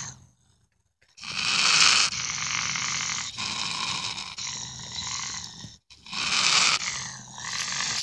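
Gray fox giving harsh, raspy growling calls in several runs of a second or more, starting about a second in, with short breaks between.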